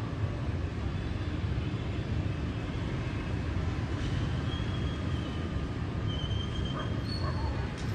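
Steady low rumble of city traffic, mostly motorbikes and cars on wet streets, with a few faint short high tones here and there.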